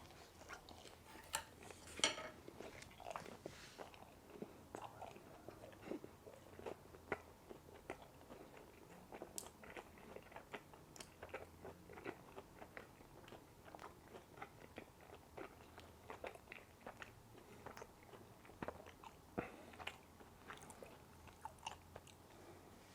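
A person chewing food close to the microphone, with many small wet mouth clicks and crunches, the loudest bite about two seconds in.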